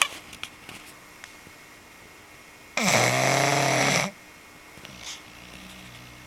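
English bulldog snoring in its sleep: one loud snore about three seconds in, lasting just over a second, with a few faint snuffles around it.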